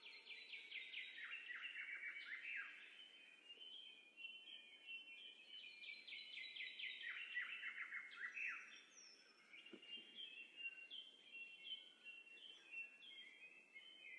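Songbirds singing faintly: two long trills of rapid notes that fall in pitch, with shorter whistled chirps between and after them.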